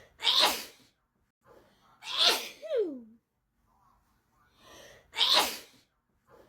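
A person sneezing again and again in a sneezing fit: three sharp sneezes, right at the start, about two seconds in and about five seconds in, each preceded by a quick breath in. The second sneeze trails off in a falling voiced 'choo'. Another breath in comes near the end.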